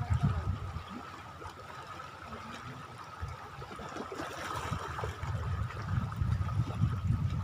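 Water washing and lapping at the shoreline in irregular surges, with a faint steady high hum above it.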